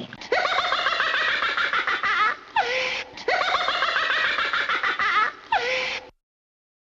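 High-pitched laughter, a clip of about two seconds played twice in a row, each time ending on a short falling cry.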